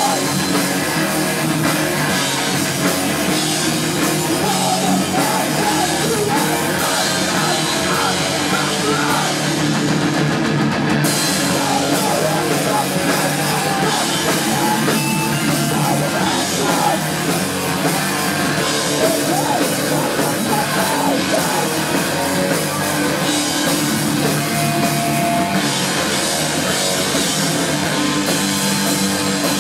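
A hardcore punk band playing live: distorted electric guitars, bass and a drum kit going full tilt, loud and continuous.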